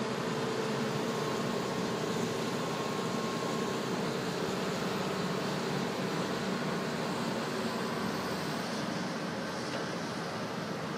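Tracked demolition excavator with a grab attachment, its diesel engine running steadily under load as the arm works the rubble pile.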